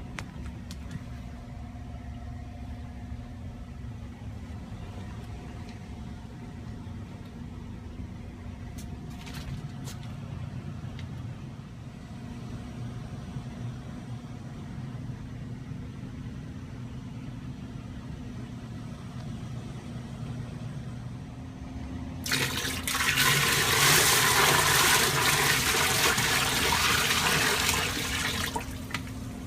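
A steady low hum, then about 22 seconds in a loud rush of water that lasts about six seconds before easing off.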